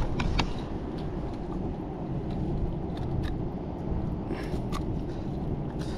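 Steady low outdoor rumble with a few light clicks and taps scattered through it.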